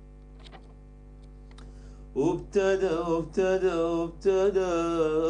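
Arabic song: a sustained instrumental chord holds steady, then about two seconds in a singer's voice comes in loud, with a wavering, ornamented melody.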